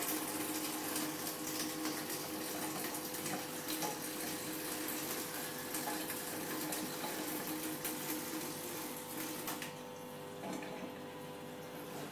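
A thin stream of water running from a fully opened kitchen mixer tap into a stainless steel sink, a steady hiss and splash that thins slightly near the end. The weak flow with the tap wide open is the sign of low water-supply pressure.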